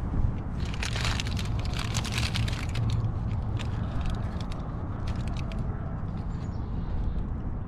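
A paper pastry bag crinkling as a flaky croissant is handled and bitten, with a dense run of crackles in the first half, over a steady low rumble.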